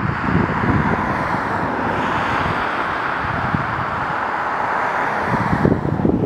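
Outdoor field recording: a steady rushing hiss with gusts of wind buffeting the microphone, the buffeting heavier near the start and end. The top of the hiss drops away near the end.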